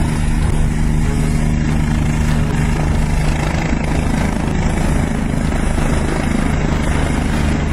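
Helicopter hovering at close range: steady rotor and turbine noise with a constant low hum.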